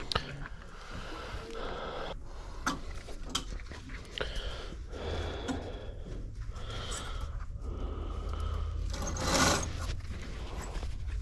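Clear plastic clothes hangers clicking and scraping along a metal rack rail as garments are pushed aside, with a louder scrape about nine seconds in.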